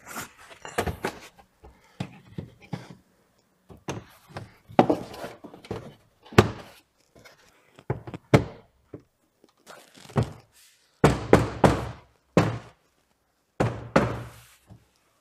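A dozen or so separate thunks and knocks as a car's rear parcel shelf is handled and set down onto its side pins, the board knocking against the plastic trunk trim, some of them in quick clusters.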